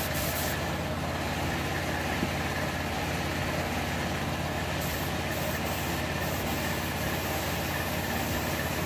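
Steady hum of an air compressor's motor running, with the hiss of a gravity-feed spray gun spraying a first coat onto a helmet.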